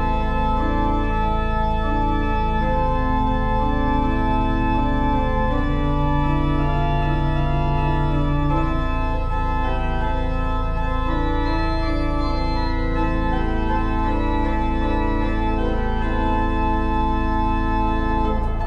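Slow, sustained chords on a Hammond organ over a steady low drone, the chord shifting every second or two.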